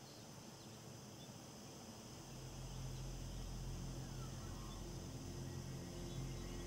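Faint background ambience with a steady high hum, then low sustained notes of the film score swell in about two seconds in and hold.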